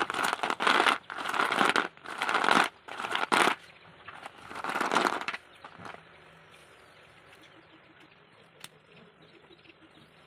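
Slate pencils being ground, in a run of gritty crunching scrapes: about six quick strokes in the first three and a half seconds, then one longer stroke a little later. After that only low background hiss with a single faint click near the end.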